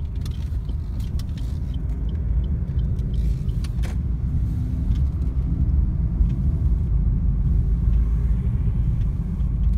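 Steady low rumble of a car driving, engine and tyre noise heard from inside the cabin, growing slightly louder in the second half, with a few faint clicks.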